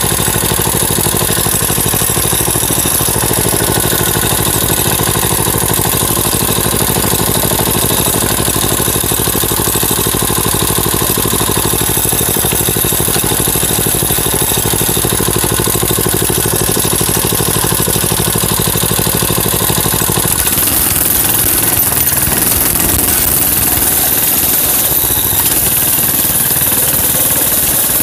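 Mini bike's small engine idling steadily for about twenty seconds, then changing to a rougher, uneven note as the bike gets under way.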